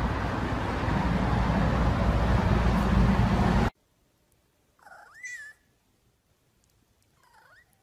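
A loud, dense rushing noise cuts off suddenly after about three and a half seconds. A cat then meows once, clearly, about five seconds in, and gives a fainter meow near the end.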